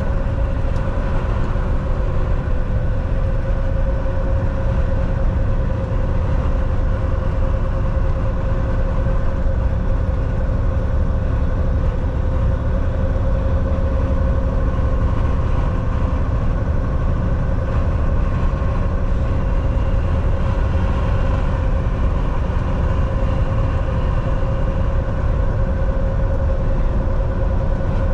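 Semi truck cruising at a steady speed: a constant low drone of engine and road noise with a steady hum over it, unchanging throughout.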